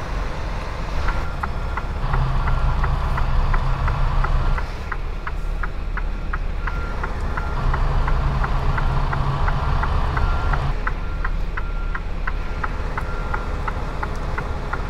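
Freightliner semi truck's diesel engine running as the truck reverses, with an evenly repeating backup alarm beeping about once a second over a steady, quicker clicking. The engine picks up twice under throttle, a few seconds each time.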